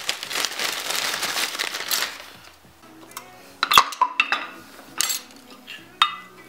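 Plastic zip-lock bag crinkling as parts go into it for about two seconds, then a few sharp metallic clinks of brake caliper parts being handled and set down.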